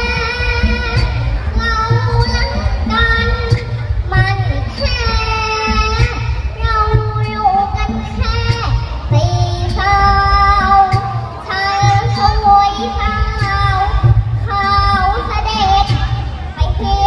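A child singing a Thai song over a loud backing track with a steady beat and regular high percussion ticks.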